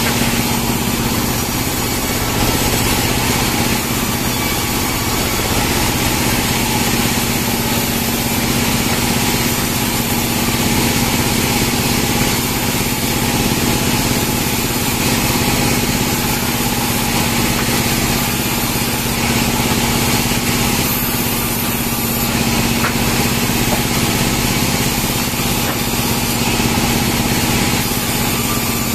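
Band sawmill running steadily with a constant low hum, its blade sawing through Merkus pine logs.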